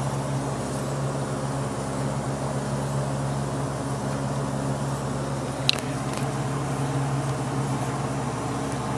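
A steady low mechanical hum from the machine shop. A little over halfway through there is a single sharp metallic clink, with a fainter one just after, as a steel tool holder is handled at the lathe's quick-change tool post while a parting-off blade is set up.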